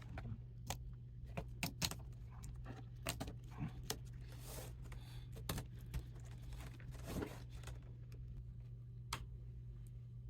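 Small plastic clicks and snaps scattered irregularly, as the plastic front bezel of a laptop screen is pried loose from its clips, over a steady low hum.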